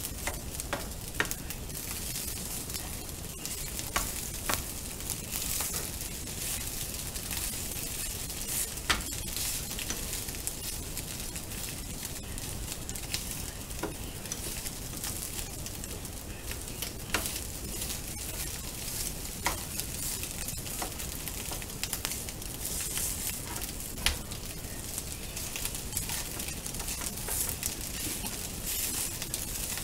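Egg fried rice sizzling in a frying pan as a slotted spatula stirs and turns it. A steady hiss is broken by scattered sharp clicks of the spatula against the pan.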